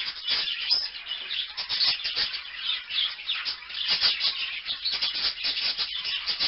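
Small parrots, parakeets, chattering with a rapid, dense run of short high chirps that never lets up.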